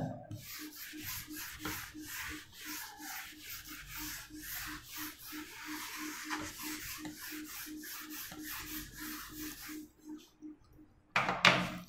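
Whiteboard eraser wiped back and forth across a whiteboard in quick repeated strokes, rubbing off marker writing; the rubbing stops about ten seconds in.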